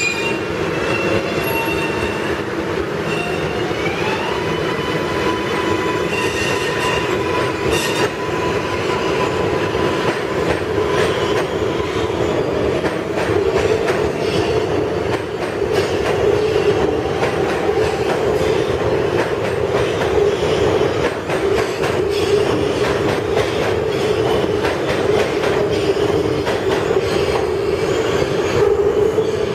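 New York City Subway R142A train moving along the station platform: a continuous heavy rumble of steel wheels on rail. Thin high whining tones run over roughly the first eight seconds, some stepping up in pitch about four seconds in.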